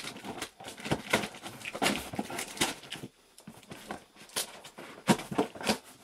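Scissors cutting through the packing tape and cardboard of a large box: a run of sharp snips and scrapes, with a brief pause about three seconds in.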